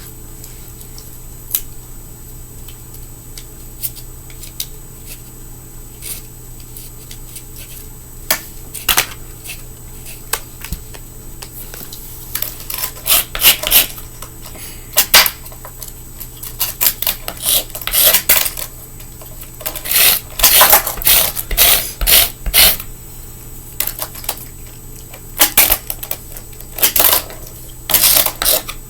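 Close-up scraping and rubbing on a fingerboard deck while its grip tape is worked, with a few light clicks at first and dense irregular scraping from about halfway through.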